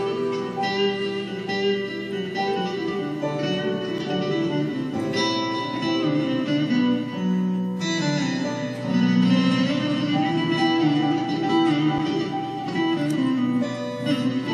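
Instrumental introduction: a bağlama-type Turkish lute picks a quick melody over held chords from a Korg electronic keyboard.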